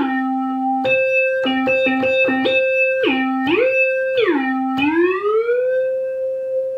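ARP Pro/DGX analog synthesizer playing one tone that alternates between two notes an octave apart, sliding between them with portamento. There is a quick run of short notes in the middle, and the glides grow slower as the portamento speed slider is moved, ending in a long slow rise to the upper note.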